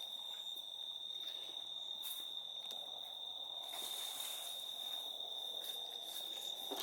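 Crickets trilling steadily at night, one continuous high-pitched note.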